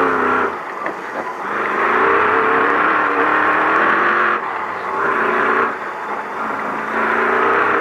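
Ford Ranger desert race truck's V8 engine running hard at speed, its pitch wavering with the throttle. The throttle lifts twice, about half a second in and again around six seconds, and each time the engine picks back up within a second.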